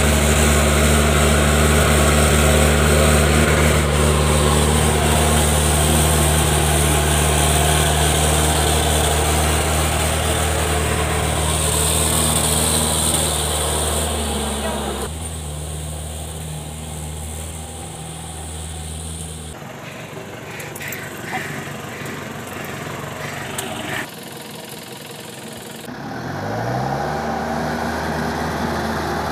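Mahindra MM 640 DP jeep's diesel engine running steadily, then, after several cuts, revving up with a rising pitch near the end as the jeep drives on the mud track.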